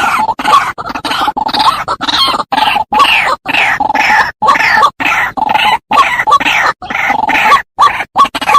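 White-breasted waterhen (ruak-ruak) calls on a bird-lure recording: a fast run of loud, harsh, croaking notes repeated over and over. Many brief, sudden gaps of silence cut through the calling.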